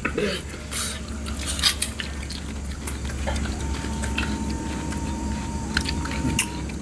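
Chewing and biting on spicy chicken feet, with irregular clicks from the mouth and bones.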